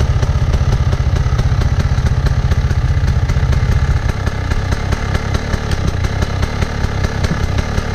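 Dirt bike engines idling with a fast, even beat; the deepest part of the sound eases off about four seconds in.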